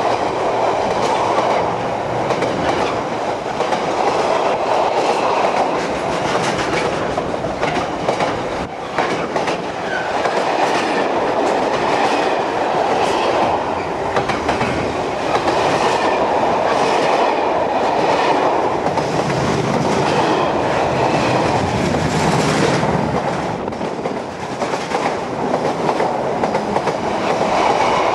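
Container freight wagons rolling past at close range, with steady wheel-on-rail noise and repeated clicks of the wheels over the rail joints.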